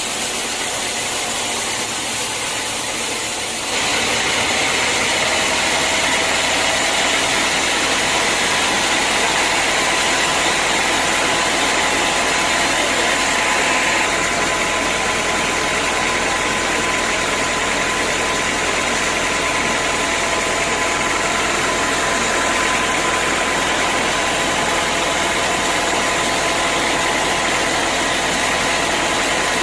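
Band sawmill running steadily, with a mechanical hum and a few steady whining tones. About four seconds in it gets louder and brighter, then stays that way.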